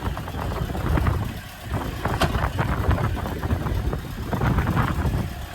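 Fishing boat's engine running with a steady low rumble, with a sharp knock about two seconds in.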